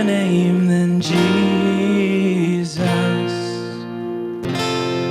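Live worship band music: a slow passage of sustained chords with guitar strumming.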